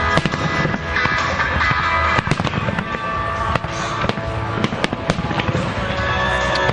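Aerial firework shells bursting in quick succession, a string of sharp bangs and crackles, with the heaviest bangs about two seconds in and again near five seconds. Loud music plays under them, set to the fireworks show.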